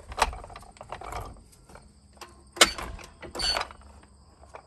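Wooden furniture dolly being shoved across concrete and knocked into place under a trailer axle's brake drum. There are several clunks and scrapes, the loudest about two and a half seconds in.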